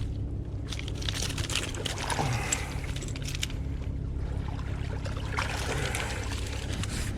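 Shallow river water sloshing and trickling around a wading angler, over a steady low rumble.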